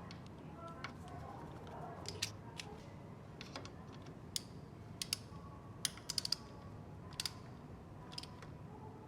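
Irregular sharp clicks and light taps of hand work on metal parts, with a quick cluster of clicks about six seconds in, over a steady low hum.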